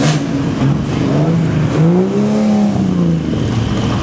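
Classic sports car engines revving as the cars pull away, the engine note rising and falling several times, with one longer rev that climbs and drops back about halfway through.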